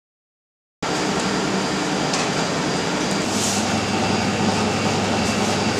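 Silent for about the first second, then the steady drone of a kitchen extractor hood or air-conditioning with a low hum, with a few soft scuffs as hands work pasta dough of flour and egg yolks on a wooden board.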